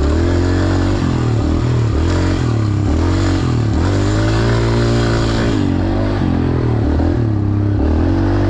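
Dirt bike engine under way on a trail, the rider working the throttle so its pitch falls and climbs again about once a second.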